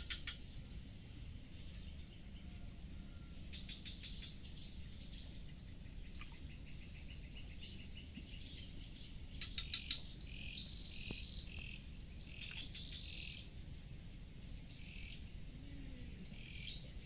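Insects and other small creatures calling: a steady, high-pitched drone with repeated trains of quick chirps, busiest in the middle.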